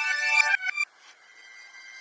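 Nokia 107 ringtone played in reverse: a melody of short synthesized notes that cuts off abruptly just under a second in. The next reversed ringtone then swells in gradually from near quiet.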